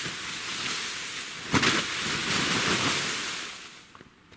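Snow sliding off a tarp shelter in a mass: a rushing hiss that swells sharply about a second and a half in and dies away near the end.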